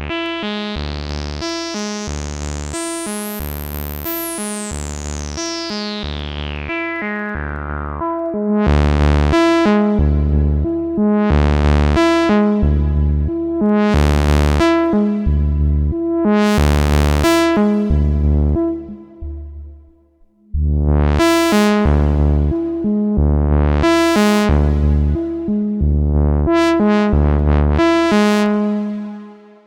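Moog Subharmonicon analog synthesizer playing a pulsing bass sequence of about two notes a second, with the filter sweeping bright and back down over the first several seconds. It then gets louder, with the filter opening on accented notes every couple of seconds. It drops out briefly about two-thirds of the way through, starts again, and ends on a held note that fades.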